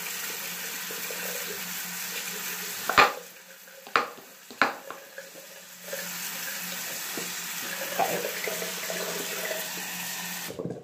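Water swishing in a clear bowl as white slime is kneaded in it, with three sharp knocks about three to five seconds in.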